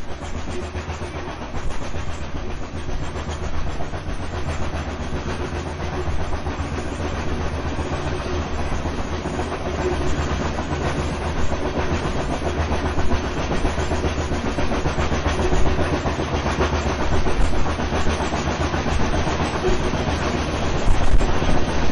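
Steam train running along the rails: a steady rumble and clatter of the wheels on the track, fading in over about the first second.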